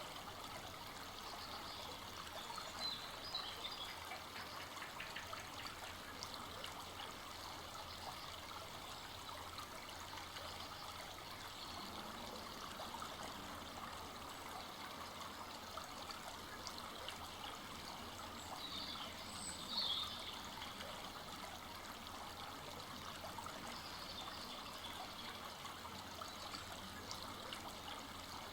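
A full-flowing forest brook running steadily, with a continuous trickling, babbling water sound. Brief high chirps break in a few seconds in and again about two-thirds through.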